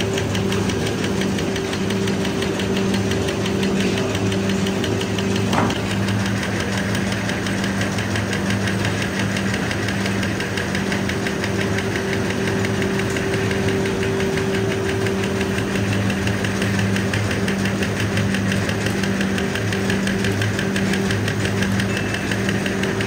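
Plastic drinking-straw cutting machine running on the production line: a steady low motor hum under a rapid, even clicking as its rotating blade chops the extruded tube into straws. One sharper click stands out about five seconds in.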